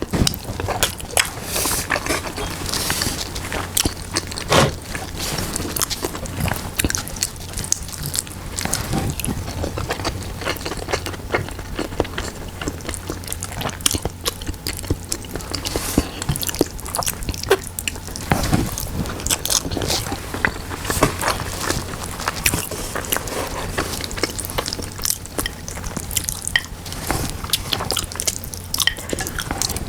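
Close-miked eating of soft braised pork hock and rice: chewing and biting with many small wet clicks and smacks, over a steady low hum.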